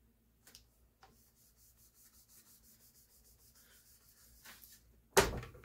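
A hand rubbing a sticker down onto a board in quick, faint, repeated strokes, followed by one sharp knock near the end.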